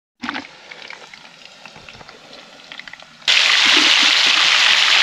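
Whole tilapia and plantain slices (tostones) deep-frying in a skillet of hot oil, sizzling steadily. Faint crackling at first, then a loud, dense sizzle that starts suddenly a little over three seconds in.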